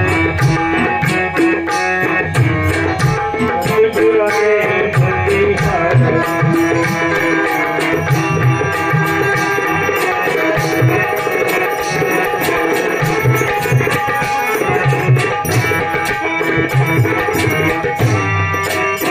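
Harmonium playing a bhajan with a steady hand-drum rhythm: held reedy chords under quick, regular drum strokes.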